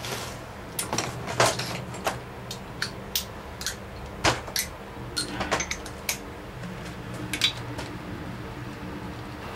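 Irregular metallic clinks and knocks of hand tools and engine parts being handled while a Chevy small-block is being torn down, about a dozen sharp hits, the loudest about a second and a half in and again after four seconds. A steady low hum runs underneath.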